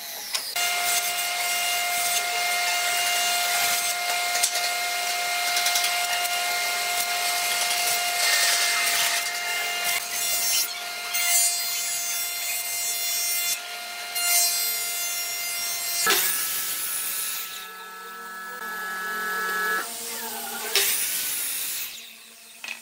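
Woodworking power tools, a miter saw and a jointer-planer, running and cutting pine boards: a steady motor whine with the rasp of wood being cut. The sound changes to a different machine tone about two-thirds of the way through.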